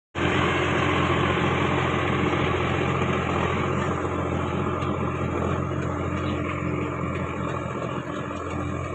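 Steady engine-like running noise with a constant low hum, starting abruptly and fading slowly.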